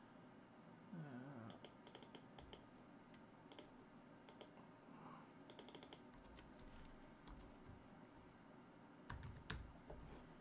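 Faint typing on a computer keyboard: irregular clusters of key clicks as a street address is typed into a web search. A harder keystroke with a soft thump comes near the end.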